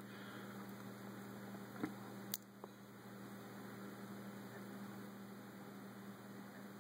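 Low room tone: a faint steady electrical hum under a light hiss, with two small clicks about two seconds in.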